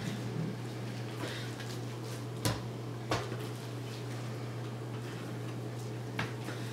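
Chef's knives cutting raw beef into cubes on plastic cutting boards, with a few sharp knocks of the blade meeting the board, the loudest two about two and a half and three seconds in and a smaller one near the end. A steady low hum runs underneath.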